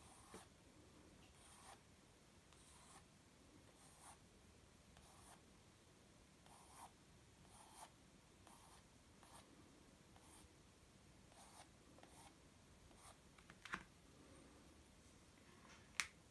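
Graphite pencil sketching on sketchbook paper: faint short scratchy strokes, about one a second. Two sharp clicks near the end, the second the loudest.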